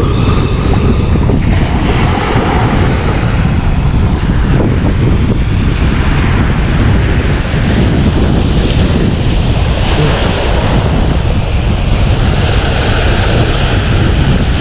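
Wind buffeting the microphone over the noise of breaking surf, a dense rumble with the hiss of the waves swelling and fading.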